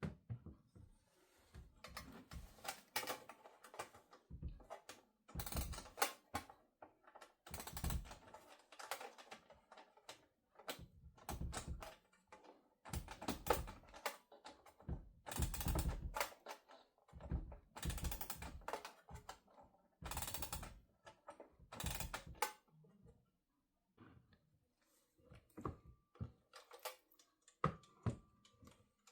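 Antique Junghans two-bell alarm clock's mechanism clicking and rattling in irregular bursts as it is handled, like a ratchet being turned.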